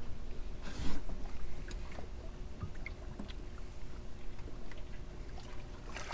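Quiet dockside sounds of a red drum being handled and let go over the edge of a wooden dock: faint scattered knocks and scrapes, a brief rush of noise about a second in, and a splash in the water at the very end as the fish is released.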